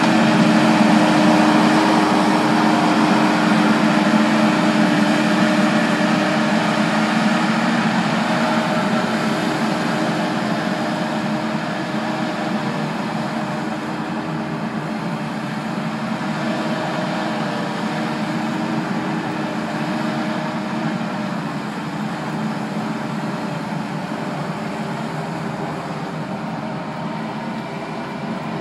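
Kubota SVL75 compact track loader's diesel engine running steadily as the machine pushes and scoops mulch with its bucket. The engine hum gradually gets quieter as the loader works farther off.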